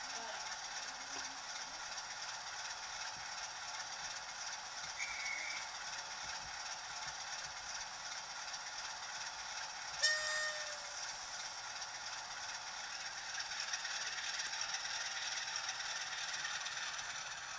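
A model railway Class 47 diesel locomotive running slowly on its test run, its motor and wheels on the track giving a steady mechanical whirr. About ten seconds in there is a single sharp click with a short ringing tone.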